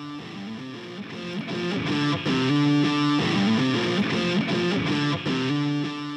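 A looped guitar phrase playing over loudspeakers, the same short riff repeating about every three seconds. It grows louder about two seconds in.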